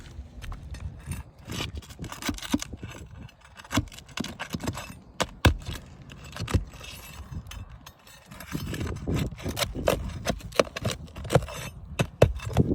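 Irregular clicks, knocks and scraping from hands-on repair work, getting busier and louder about two thirds of the way in.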